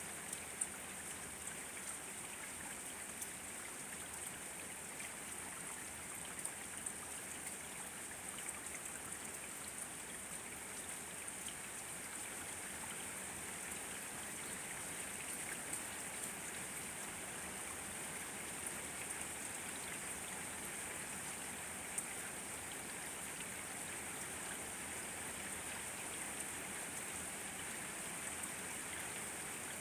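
Steady rainfall: an even hiss with scattered drop ticks.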